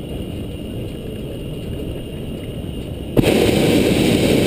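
Hot air balloon's propane burner firing overhead: a loud, steady rush of noise that starts suddenly about three seconds in, over a low rumbling background.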